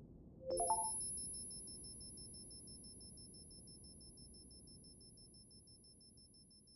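Synthetic electronic beeps: a quick run of short rising tones about half a second in, then a thin, high tone pulsing about five times a second over a steady higher whine, both fading slowly. A faint low rumble lies underneath.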